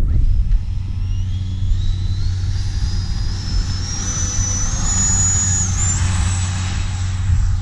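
Electric ducted fan of a radio-controlled BAE Hawk jet spooling up for takeoff: a whine that climbs in steps to a high pitch over about six seconds, then holds steady near full power. Under it runs a steady low rumble.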